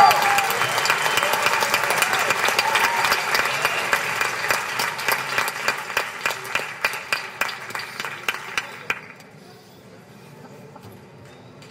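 Concert audience applauding, with a few whoops in the first seconds. The clapping thins to scattered claps and dies away about nine seconds in, leaving a faint hall background.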